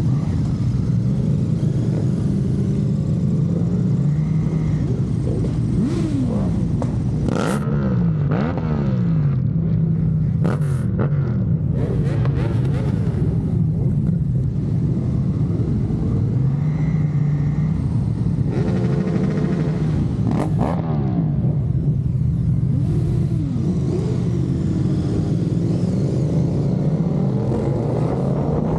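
Several motor vehicle engines running at once, their pitches rising and falling and crossing as they rev and drive off one after another.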